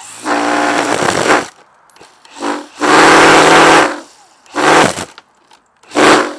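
Battery-powered string trimmer spinning plastic zip ties in place of trimmer line, run in five short trigger bursts with pauses between; the longest and loudest burst comes about halfway through.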